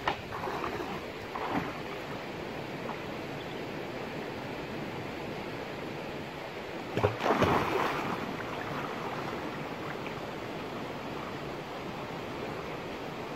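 Steady rush of a shallow stream, broken by water splashes as a man wades and drives a bamboo pole into the water: a sharp splash at the very start, another about a second and a half in, and the loudest splashing about seven seconds in.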